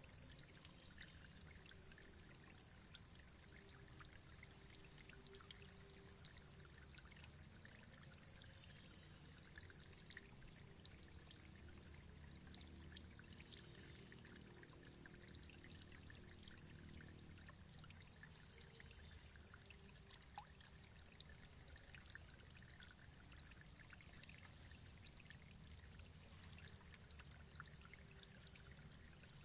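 Faint, steady running water: a continuous trickle with many small scattered drips.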